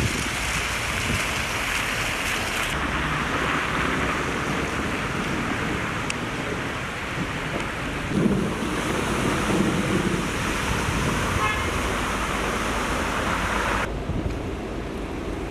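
Heavy rain pouring down in a steady hiss, with wind rumbling on the microphone. The hiss drops off abruptly about fourteen seconds in.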